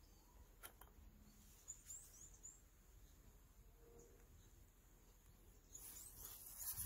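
Near silence: faint outdoor background with a few faint high chirps about two seconds in, and a brief rise of rustling noise near the end.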